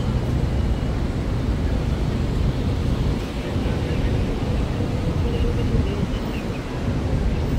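Busy city street ambience: a steady low rumble of traffic with indistinct voices.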